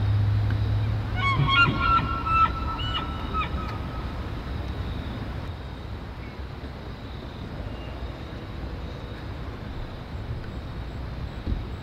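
Bull elk bugling: a high, whistling rut call with several stepped changes in pitch, starting about a second in and lasting about two seconds.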